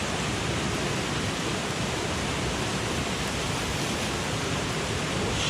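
Steady rush of a mountain headwater stream, an even unbroken wash of flowing water.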